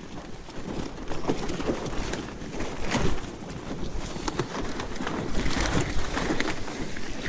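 Hilleberg Anaris tent fabric flapping and snapping irregularly in strong, gusting wind, with the wind buffeting the microphone.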